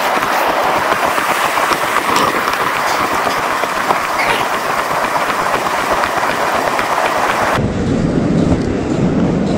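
Steady hiss of ocean surf and wash on a beach, picked up on a GoPro microphone. About three-quarters of the way through, the sound changes abruptly to a lower rumble.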